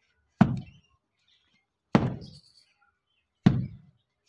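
A brick struck three times, dull knocks about a second and a half apart, as it is knocked about while salvaged for reuse.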